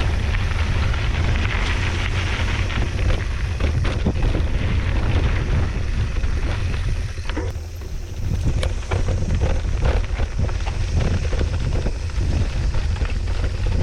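Wind buffeting the microphone over the rumble of a mountain bike riding a dirt trail, with many small knocks and rattles from the bike going over rough ground.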